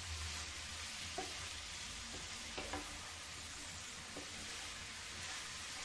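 Potato and cabbage sabzi sizzling softly in a nonstick pan as it is stirred and turned with a wooden spatula, with a few light knocks of the spatula against the pan.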